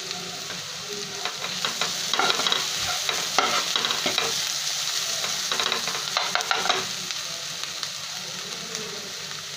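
Chopped onions and masala frying on a low flame in a non-stick kadhai, sizzling steadily, with a steel ladle scraping and stirring through them in a run of strokes from about one to seven seconds in; after that only the gentle sizzle goes on.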